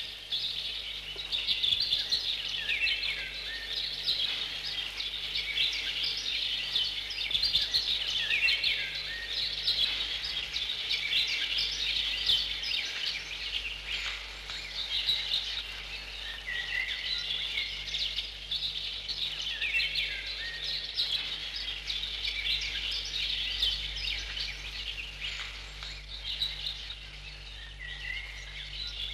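A dense chorus of small birds chirping and twittering continuously over a steady background hiss.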